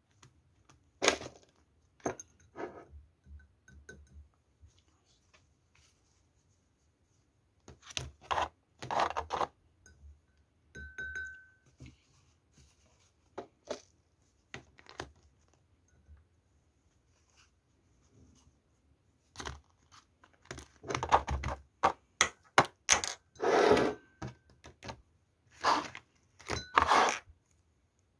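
Plastic kit pieces being handled on a table: irregular taps, clacks and short rustles, busiest in the last third, with one short squeak about eleven seconds in.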